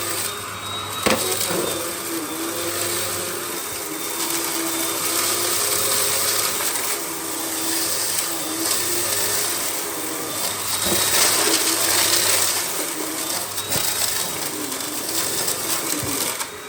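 Russell Hobbs Athena Pet vacuum cleaner's 400-watt motor running steadily with a high whine, its cyclone shroud clogged with dirt and starving the airflow. A couple of sharp clicks come through, about a second in and again near the eleven-second mark.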